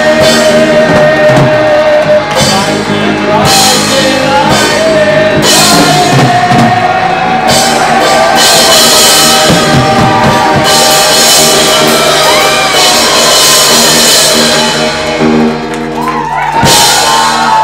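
Live rock band playing a rock and roll number: drum kit with crashing cymbals, electric guitars and bass guitar, loud, with a sharp final hit about a second before the end.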